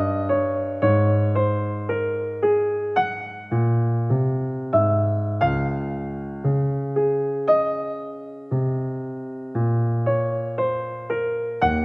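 Background piano music: a slow melody of single struck notes, each fading away, over lower bass notes.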